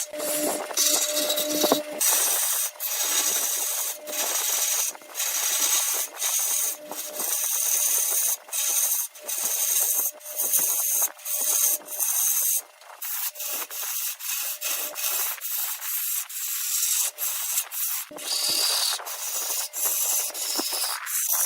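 Wood spinning on a lathe being rubbed by a hand-held tool or abrasive in repeated short passes. It makes a hissing rasp that breaks off briefly about once or twice a second.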